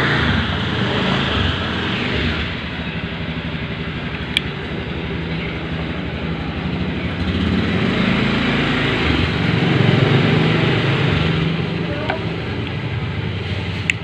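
Motor vehicle engines running steadily, swelling and easing off, with the loudest pass about ten seconds in, over a broad hiss of traffic. A single sharp tick about four seconds in.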